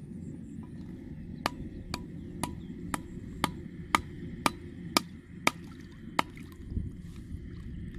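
Claw hammer driving a wooden stake into the canal bed, about ten sharp blows at roughly two a second that stop about six seconds in.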